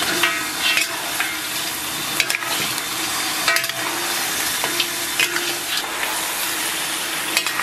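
Chunks of lamb rib sizzling in hot oil in a large wok, stir-fried with a metal spatula that scrapes and clinks against the wok now and then.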